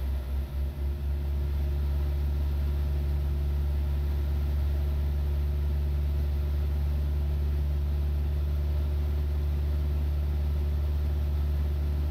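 Van's RV-7's piston engine and propeller running steadily on final approach, a constant drone with a few brief dips in level in the first second.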